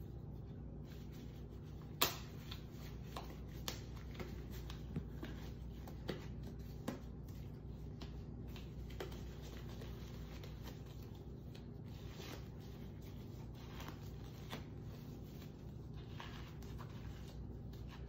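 Disposable exam gloves being pulled onto the hands and worked over the fingers: rubbing and crinkling, with a sharp snap about two seconds in and several smaller snaps over the next few seconds. A steady low hum runs underneath.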